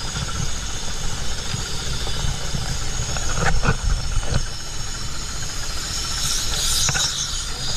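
An engine on a diving boat running steadily, with a few light knocks in the middle and a louder hiss about six seconds in.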